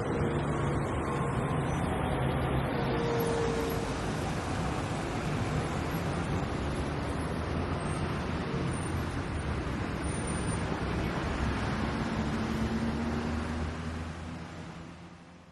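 Busy road traffic: a steady mixed rush of vehicles with low engine hum, fading out near the end.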